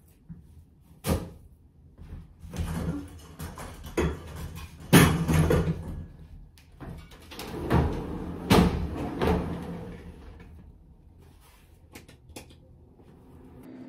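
A run of irregular knocks, bumps and clatter, the loudest about five seconds in, growing sparse and quieter over the last few seconds.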